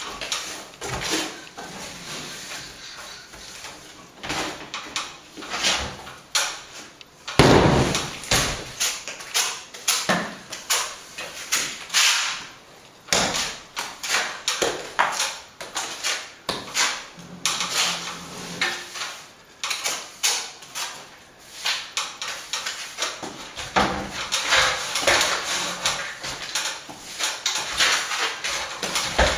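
Plastering trowel scraping and spreading sand-and-plaster render into a wall chase in short, irregular strokes, with one louder thump about seven seconds in.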